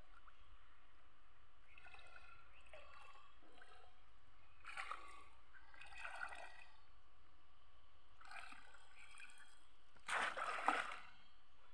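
Shallow muddy pond water sloshing and splashing in short bursts as a conical net fish trap is pushed and plunged into it by a wading person, with a louder splash near the end.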